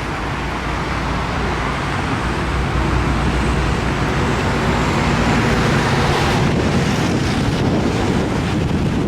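Diesel freight locomotive working at full power, a steady low engine drone that grows louder over the first few seconds as it approaches, with wind buffeting the microphone.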